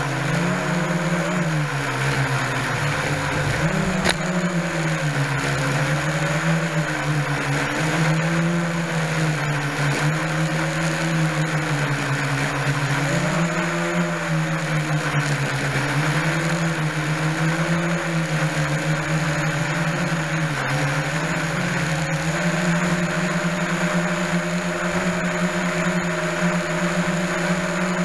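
Small U-807 quadcopter's motors and propellers buzzing, heard close up through its on-board 808 camera. The pitch rises and falls every couple of seconds as the motors speed up and slow down, then holds steady for the last several seconds.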